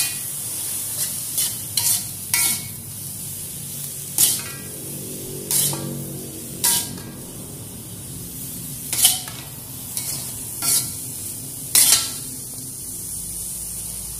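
Metal spatula scraping and knocking against a metal wok as green capsicum and onion rings are stir-fried, over a steady sizzle. The strikes come irregularly, every second or so, each leaving a brief ring from the pan.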